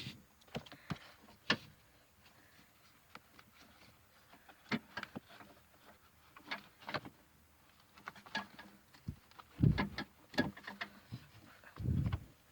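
Scattered clicks and taps with a couple of dull thumps near the end, from handling a car seat's top tether strap and hook while attaching it to the anchor.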